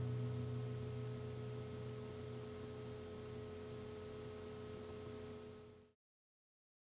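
The last acoustic guitar chord dying away over a steady electrical hum with a faint high whine, all cutting off suddenly to dead silence near the end.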